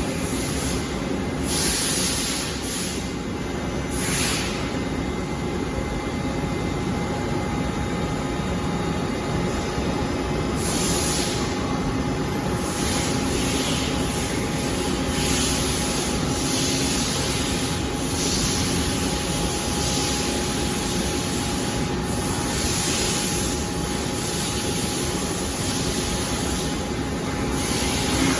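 Gantry robot running: a steady machine hum with a faint whine, broken every few seconds by short bursts of hiss.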